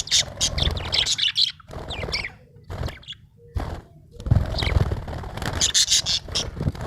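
Budgerigar chirping and warbling in rapid runs of short, high chirps, with a pause about three to four seconds in.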